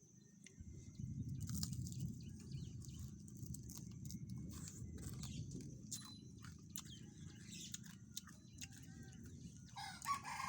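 Close-up chewing and crunching of food, starting about half a second in and carrying on with irregular crackles, while birds chirp faintly now and then.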